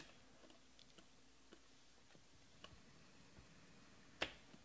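Faint clicks of glossy trading cards being flipped through a stack in the hand, with one louder card snap about four seconds in.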